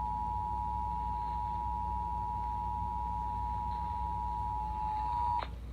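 Emergency Alert System attention signal: the steady two-tone alert (853 Hz and 960 Hz together), cutting off sharply about five and a half seconds in, over a low background hum. It is the tone that opens a National EAS test broadcast.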